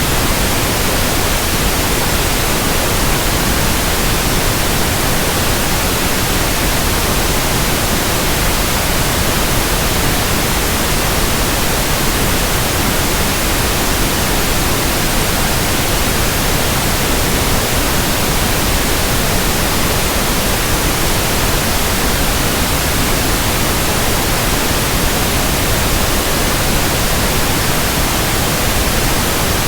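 Pink noise: a steady, even hiss spread across all pitches, unchanging throughout, used as a tinnitus sound-matching and masking sample.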